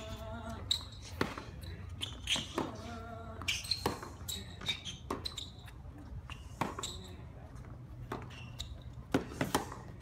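Tennis rally on a hard court: racquets striking the ball and the ball bouncing, a string of sharp pops about a second apart, over a low murmur from the crowd.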